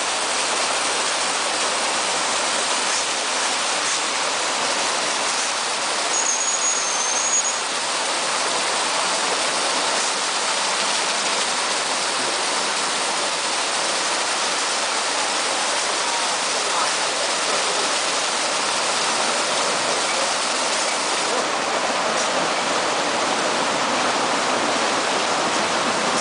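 Tunnel car wash machine spraying water over a car, with its rotating brushes scrubbing: a steady rushing, hissing water noise. A brief high thin whistle sounds about six seconds in.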